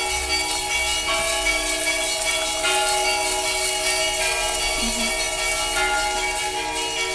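Orthodox cathedral bells ringing: several bells of different pitches struck in turn, their tones overlapping and ringing on, with fresh strikes every second or two.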